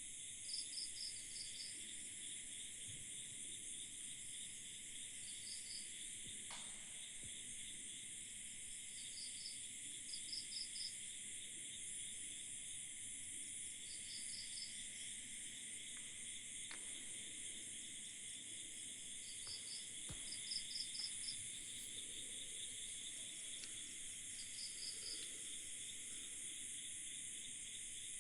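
A steady chorus of insects, a continuous high, finely pulsing trill. Every few seconds another caller breaks in with a short group of three to five quick chirps.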